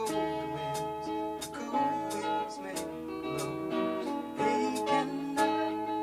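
Guitar strumming chords in a steady rhythm over sustained notes, an instrumental passage of a song.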